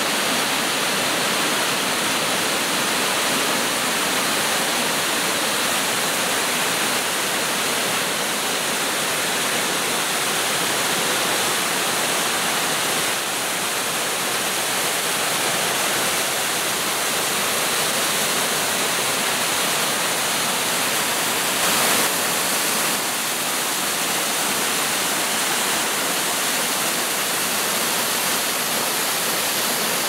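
Waterfall: white water pouring over rocks and churning in the pool below, a steady rushing.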